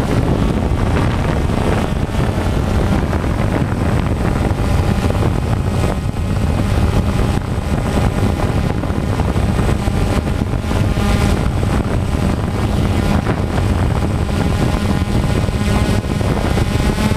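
DJI Phantom quadcopter's electric motors and propellers buzzing steadily, with wind rush, heard close up from the GoPro camera the drone carries. The pitch wavers now and then as the motors speed up and slow down.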